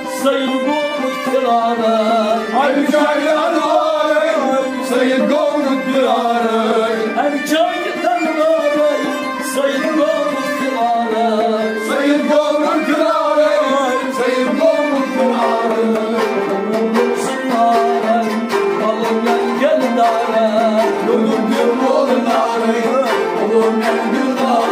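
Kashmiri folk music: a harmonium playing the melody in steady stepped notes over hand-drum strokes, as an instrumental passage between sung verses.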